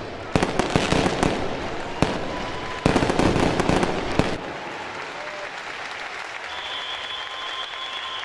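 A rapid, irregular series of sharp cracks and bangs for about four seconds, then a quieter, steady noisy hubbub with a few faint held tones.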